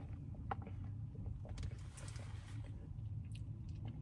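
A drink being sipped through a straw, with a few small, sharp mouth and lip clicks, over a steady low rumble inside a car.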